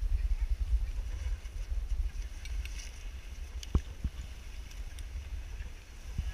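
Wind buffeting the microphone, a steady low rumble, with one short knock just under four seconds in.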